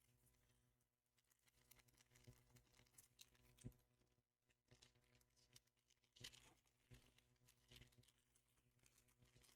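Near silence with faint, scattered rustles and small taps of trading cards and booster-pack foil being handled.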